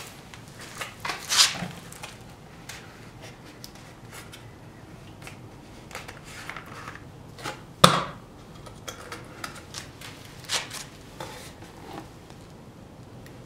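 Irregular knocks, clicks and rustles of plastic coolant jugs and a plastic bucket being handled. The sharpest knocks come about a second and a half in and about eight seconds in.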